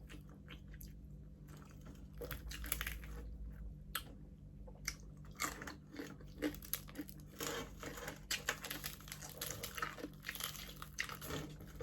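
A person chewing and biting into crispy pata, deep-fried pork leg, its crackling skin crunching close to the microphone in irregular short crunches and mouth sounds.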